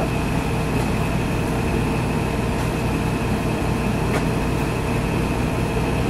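Window air conditioner running with a steady, even hum and a faint steady whine over it.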